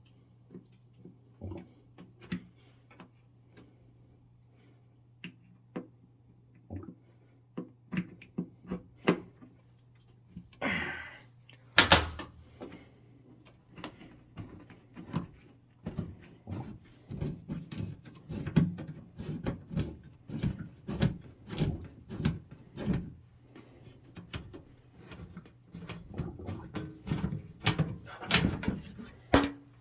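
Clicks, knocks and clatter of a gas furnace's sheet-metal cabinet being opened up by hand, its access panel handled and removed, sparse at first and growing busier about halfway. A faint steady low hum runs underneath.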